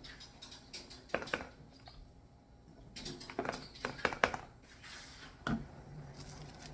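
Light clicks and taps of small plastic items being handled while making slime, in short clusters about a second in and again around three to four seconds in.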